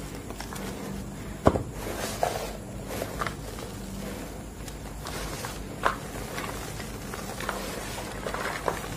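Hands crumbling and sifting chunks of green-dyed gym chalk in a bowl: a continuous gritty rustle of powder and small pieces falling through the fingers. A sharp crunch comes about a second and a half in, another near six seconds, and a few more near the end.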